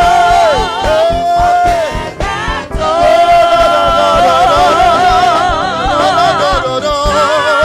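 Live gospel choir singing long held notes with a wavering vibrato over instrumental accompaniment that keeps a steady beat. There is a short drop in level about two seconds in, and a new held note starts about three seconds in.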